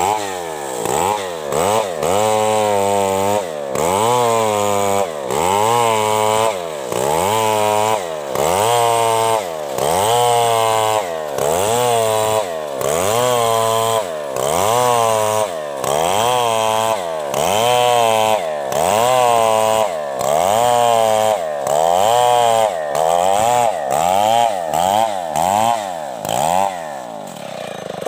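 Chainsaw cutting through a coconut palm trunk, its engine note rising and falling about once a second as it revs and bogs under load, dropping lower near the end.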